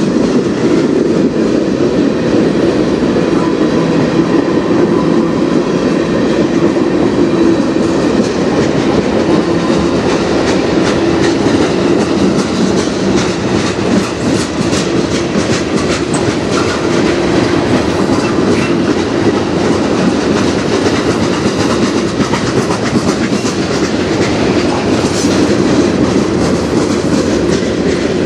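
Freight train tank cars and covered hoppers rolling past at close range: a steady, loud rumble of steel wheels on rail with clickety-clack as the wheels cross rail joints, the clicks coming thickest midway.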